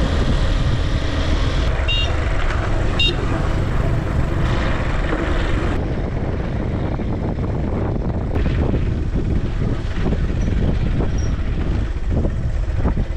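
Riding on a motorcycle taxi: the motorbike engine running under heavy wind rumble on the microphone, with two short high beeps about two and three seconds in.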